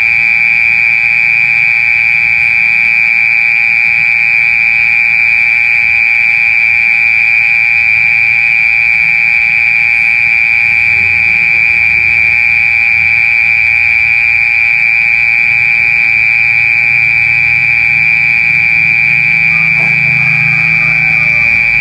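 Mole cricket singing: a loud, steady, high-pitched buzz held without a break.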